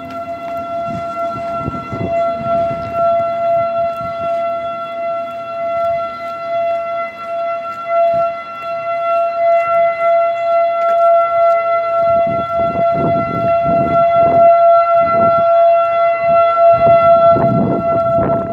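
Outdoor tornado warning siren sounding a steady alert tone: one held pitch that does not rise or fall, swelling slowly in loudness. Irregular low rumbling joins in over the last several seconds.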